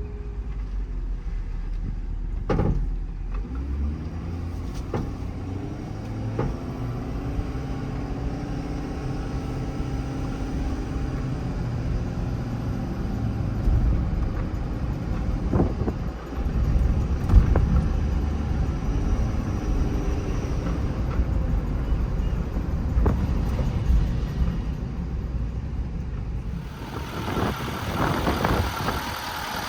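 A Ford F-550's 6.7 L Power Stroke V8 turbodiesel driving, heard from inside the cab: the engine pitch rises and falls as it pulls away, under steady road rumble. A few sharp pops come from the service-body crane, which sits about half an inch up and is not fully stowed on its pedestal.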